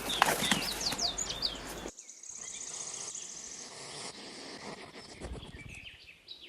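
Small birds chirping with quick rising and falling calls. About two seconds in the sound changes abruptly to a quieter background with a fast, high, evenly pulsed trill and a few faint chirps.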